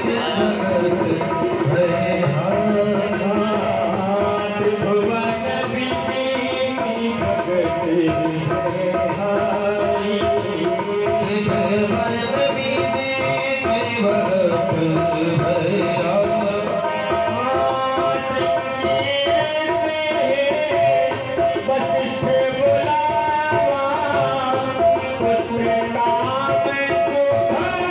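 Kirtan music: a wavering instrumental melody over tabla drumming and a steady, evenly repeating metallic jingle beat.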